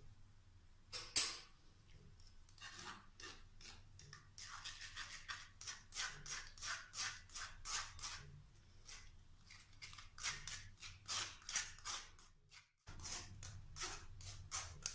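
Spoon scraping and pressing blended watermelon pulp against a stainless steel mesh strainer to push the juice through and hold back the seeds, in quick repeated strokes, about two a second.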